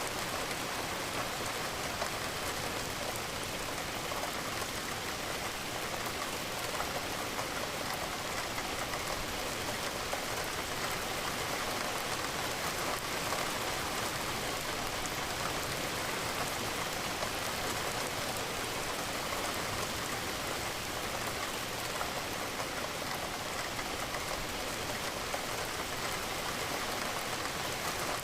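Steady rain falling, with a patter of drops against a window.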